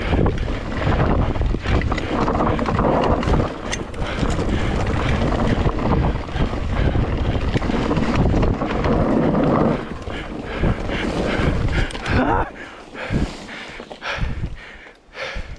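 Wind buffeting the microphone of a mountain bike's point-of-view camera and tyres rolling over a dirt singletrack on a fast descent. After about twelve seconds it drops quieter, leaving separate knocks and clatters of the bike over rough ground.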